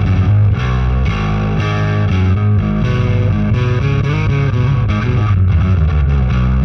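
Bass played through an MTI-era Ampeg SVT tube bass head with a master volume mod, into a miked Ampeg 8x10 cabinet: a continuous, distorted run of notes with a heavy low end.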